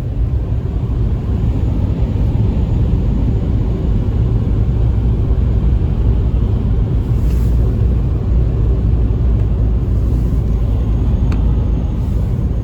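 Steady low rumble of a car driving along a road, heard from inside the cabin: tyre and engine noise.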